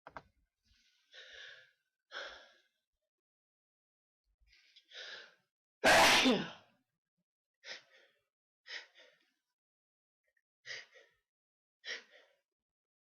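A person sneezing once, loudly, about six seconds in, after a few short gasping inhales that build up to it; a handful of short breaths follow, about one a second.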